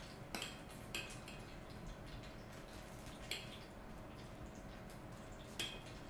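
A few faint, sharp clicks of a spoon against a stainless-steel pan as thick cream sauce is spooned onto a plate, over a low steady hum.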